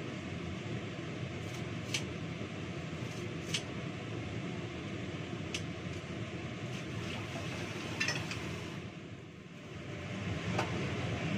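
Steady fan-like hum in a small room, with a few light clicks and clinks from a bowl and utensils being handled at the sink.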